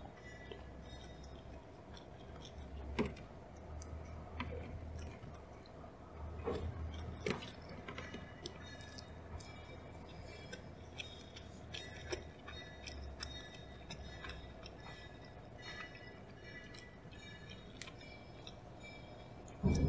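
Faint scattered clicks and knocks, a few a second at most and irregular, over a steady low hum.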